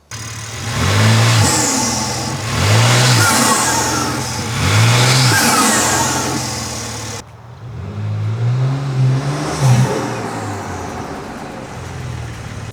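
BMW M4 G82's S58 twin-turbo straight-six, fitted with a Dinan carbon air intake, being revved: three quick blips that rise and fall in pitch. After a sudden break comes a longer rev that climbs and drops away.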